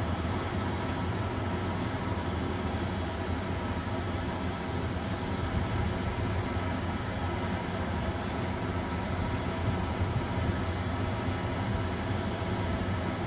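Steady running noise of a motor vehicle, an even low hum with a wash of engine and road noise.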